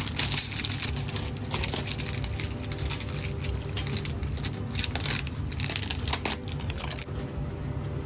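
Plastic packaging film being peeled and crumpled off a new washing machine, a run of irregular crinkling and crackling. A steady low hum runs underneath.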